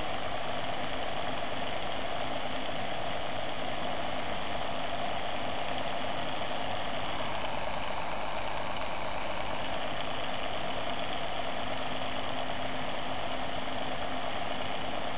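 Bedini MG2 pulse motor spinning a 120 mm cooling-fan blade on its flywheel axle near full speed: a steady whirring hum with a rush of air from the fan.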